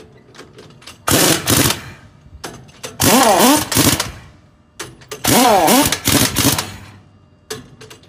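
Heavy pneumatic impact wrench, carried on a support arm, hammering on a truck wheel's lug nut in three bursts of about a second each, its pitch wavering within each burst.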